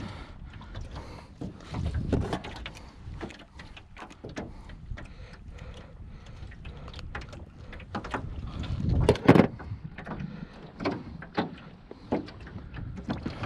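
Scattered clicks, knocks and rattles of pliers, a fish gripper and a landing net being handled inside a metal jon boat while a flounder is unhooked, with a louder cluster of knocks about nine seconds in, over a low rumble.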